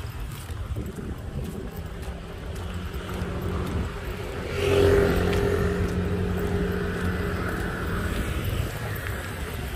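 Road traffic beside the pavement, with a motor vehicle's engine passing close and at its loudest about five seconds in, over a steady engine hum.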